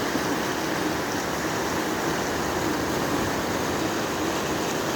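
Fast mountain river rushing, a steady even noise of water running high.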